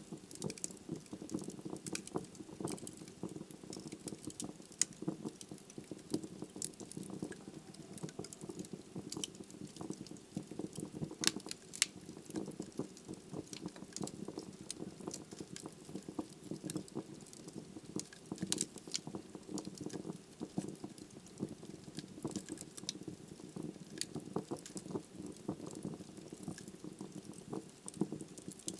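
Wood logs burning in a fireplace, crackling continuously with many small pops over a steady low rumble. A couple of sharper, louder pops come about halfway through.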